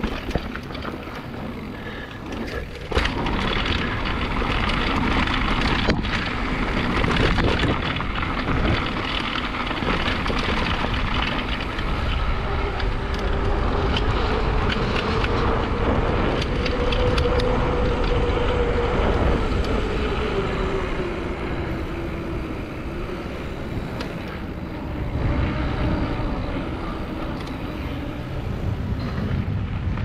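Mountain bike rolling downhill on a trail: steady tyre and wind noise with frequent rattles and clatter from the bike, getting louder about three seconds in.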